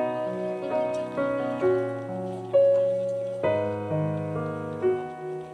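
Instrumental intro of a slow acoustic pop song, heard live through outdoor stage speakers. Chords ring and sustain, with new notes struck every half second to a second and no singing yet.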